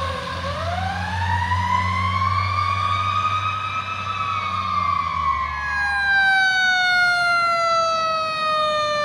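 Fire apparatus siren wailing: it winds up from a low pitch to a high one over about four seconds, then slowly falls, with a low engine rumble underneath that fades out about six seconds in. A second siren tone comes in about halfway and slowly falls in pitch.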